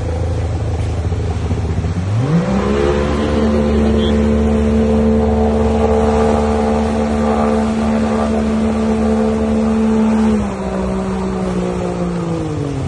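Heavy truck engine driving through a shallow, fast river: it revs up sharply about two seconds in and holds high revs, eases off about ten seconds in, then drops further near the end, over rushing, splashing water.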